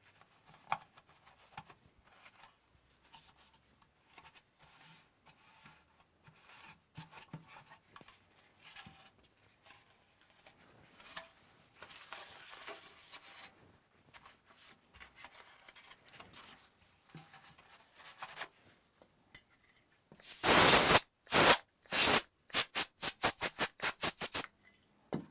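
A damp paper towel rubbing and scrubbing over the plastic bottom shell of a PlayStation 4, in faint, irregular strokes. About twenty seconds in, a can of compressed air with a red straw fires one long blast of about a second, then a quick string of short bursts; these blasts are the loudest sound.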